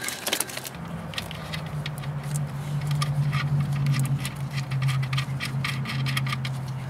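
Small metal clicks and taps, irregular and frequent, as the hot wire's nut is run onto the alternator's output terminal stud with a hand tool. A steady low hum starts about a second in and continues underneath.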